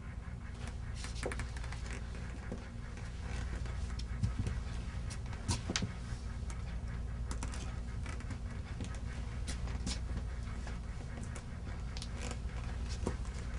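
A steady low hum with many light, irregular clicks and taps over it, two of them a little louder about four and five and a half seconds in.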